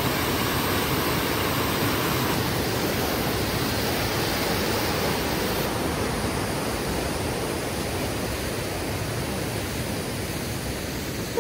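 Mountain creek rushing over boulders as a whitewater cascade: a steady, even rush of water that eases slightly in the second half.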